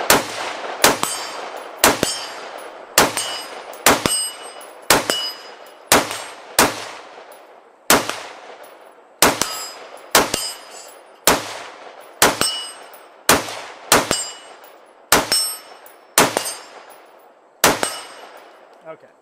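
AR-15-style rifle firing 55-grain 5.56 mm rounds in a steady string, about one shot a second, each shot followed by metallic ringing from the steel targets.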